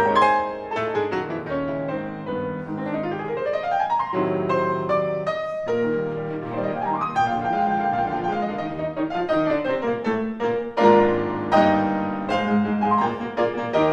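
Classical music played on grand piano, with fast runs sweeping up and down the keyboard and loud struck chords.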